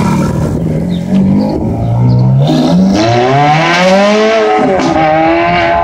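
Ferrari F430's V8 accelerating hard away under full throttle, its note climbing in pitch twice with a drop at each upshift, the second one near the end.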